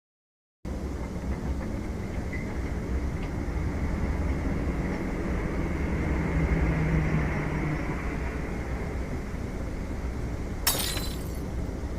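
After a moment of dead silence, a steady low rumbling noise starts suddenly under a second in and runs on. About eleven seconds in, a single short, sharp crash cuts through it.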